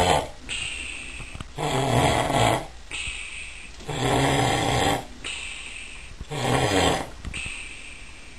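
A man snoring heavily: three loud, rattling snores come about every two and a half seconds. Between them is a softer hissing breath, the part likened to a turbo blow-off valve.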